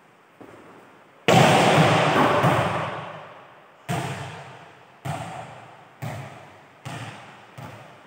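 A volleyball struck hard by hand, the smack echoing for a couple of seconds around a large hall. A few seconds later the ball lands and bounces on the court floor about six times, each bounce quieter and quicker than the last as it comes to rest.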